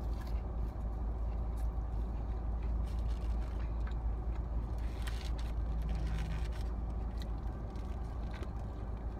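Steady low rumble of a car interior, with scattered small clicks and rustles of eating.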